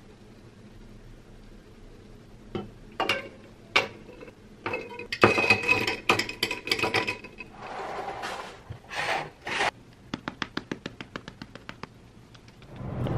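A metal straw stirring iced coffee in a glass, clinking and rattling against ice cubes and the glass wall. A few separate knocks come first, and the stirring ends in quick, even ticks.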